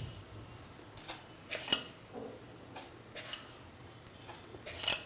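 A small spoon scooping sugar and clinking against a small metal cup, several short clinks and scrapes spread a second or so apart.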